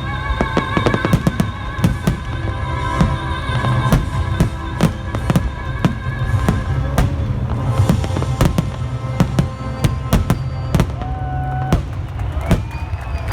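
Fireworks bursting in a rapid, irregular string of sharp bangs over loud music with sustained notes and a steady bass.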